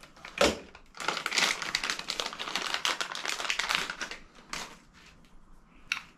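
Stanley utility knife at work: a knock about half a second in, then about three seconds of dense crackling and scraping, ending in a few light taps.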